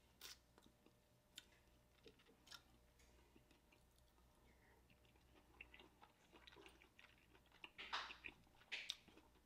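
Faint, close-miked chewing of a soft steamed dumpling: scattered small wet clicks at first, growing denser and a little louder in the last few seconds.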